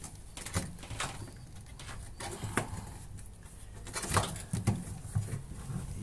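Hands working at the rubber door seal and inside the drum of a front-loading washing machine: scattered rustling and scraping with light knocks, the sharpest a little past the middle.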